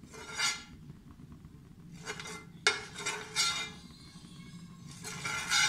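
Steel spoon scraping and clinking on a non-stick frying pan in several short strokes as oil is spread over it, with one sharp tap about two and a half seconds in.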